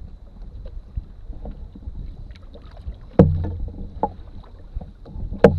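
Canoe paddling, with a low rumble of water on the hull and small ticks, and two loud hollow knocks about two seconds apart, about three seconds in and near the end, typical of a paddle shaft striking the canoe's side.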